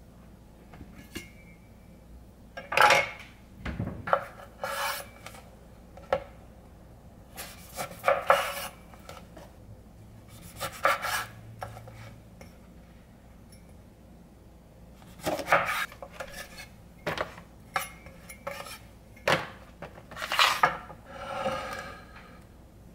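A chef's knife cutting lemons on a wooden cutting board: irregular knocks of the blade on the wood and short slicing scrapes, coming in scattered bursts with pauses between.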